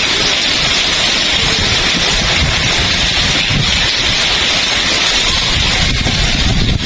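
Heavy rain falling steadily, with strong wind buffeting the microphone as a low rumble.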